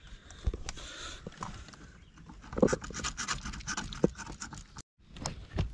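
Metal clicking and scraping as pliers work a hooked lure free from a grouper's mouth. The clicks come thickest in a busy run about halfway through.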